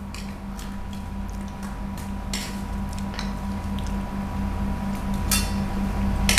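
Spoons scraping and tapping against plates of rice, a few short scrapes and small ticks, over a steady low hum.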